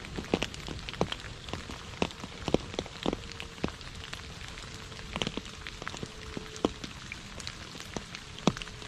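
Steady rain falling on a puddle and wet fallen leaves, with a soft continuous hiss and irregular close drops plopping into the water, several a second.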